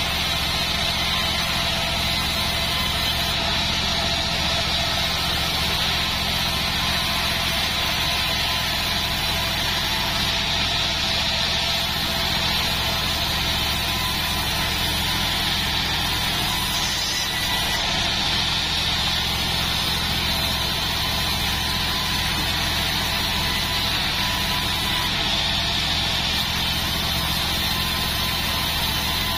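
Band sawmill running steadily with a low, even motor drone, its blade ripping lengthwise through a joar-wood (Senna siamea) beam with a continuous hiss.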